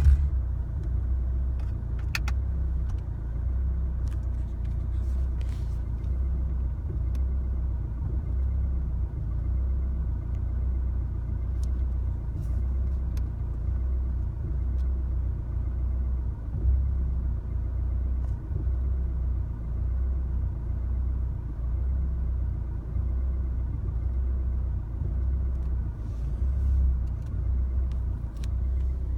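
2016 Chevrolet Colorado's 2.8 L Duramax four-cylinder turbodiesel idling roughly: a low, uneven rumble that wavers in strength.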